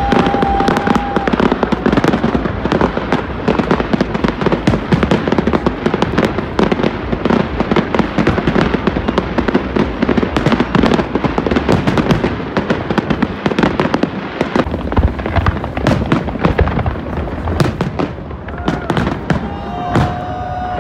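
Aerial fireworks shells bursting in rapid, continuous volleys, with dense crackling between the bangs, easing off a little near the end. A short steady whistle sounds at the start and again near the end.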